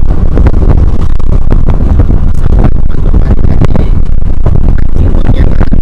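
Wind buffeting the microphone over a running motor, loud and distorted throughout.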